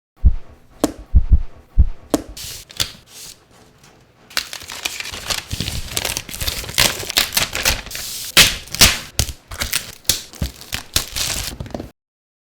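Typing on a Mountain Everest 60 mechanical keyboard with pre-lubed Mountain switches and PBT keycaps: a few separate heavier keystrokes at first, then from about four seconds in fast continuous typing that stops abruptly near the end.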